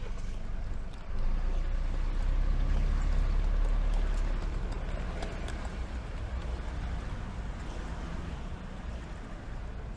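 City street traffic: the low rumble of passing vehicle engines, swelling about a second in and easing after about four seconds.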